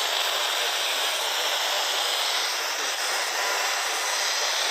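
Steady radio static: an even hiss of noise from a radio receiver, with no voice on the channel.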